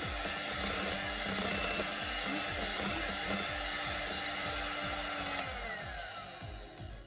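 Electric hand mixer running steadily, its twin beaters whipping egg whites into meringue in a glass bowl. Near the end the motor's whine falls in pitch and fades as it slows and stops.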